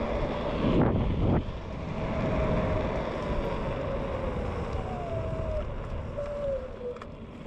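Wind rushing over the microphone and low road rumble while a TurboAnt V8 electric scooter is ridden, with a thin motor whine from its 450 W hub motor that rises and then falls in pitch with speed. A few short thumps come in the first second or so.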